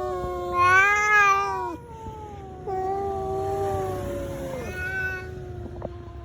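Angry cat yowling in long, drawn-out caterwauls. One call swells louder about a second in and breaks off. A second long call then slowly falls in pitch and fades away.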